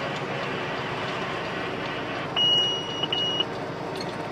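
Steady engine and road noise inside a truck's cab. A little past halfway come two electronic beeps, a longer one and then a short one.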